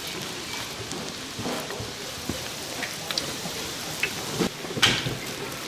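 Food deep-frying in hot oil: a steady crackling sizzle, with scattered clicks and knocks of utensils, the loudest knock near the end.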